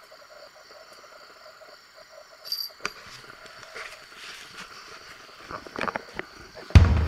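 Crickets and other night insects chirping steadily, with a brief high ring about two and a half seconds in. From about three seconds, crunching footsteps and handling noises on gravel, and drum-heavy music cuts in loudly near the end.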